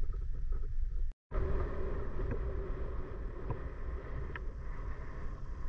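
Wind buffeting the microphone, a steady low rumbling noise, which drops out completely for a moment just over a second in.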